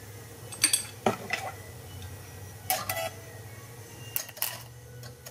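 Steady low transformer hum under a few sharp crackling snaps from a small flame (spark) speaker driven by a modulated Collins transmitter. The snaps come about a second in, near three seconds, and a little after four seconds.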